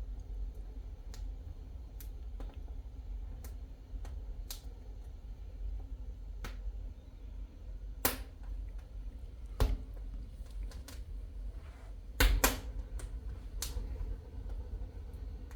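Wood fire in a fireplace crackling, with sharp pops at irregular intervals over a low steady rumble; the loudest pops come a little past halfway and as a quick double pop about three quarters of the way in.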